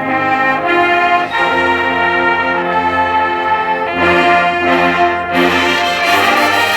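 High school marching band playing loud, sustained brass chords that move to a new chord every second or so, the sound growing brighter about five seconds in.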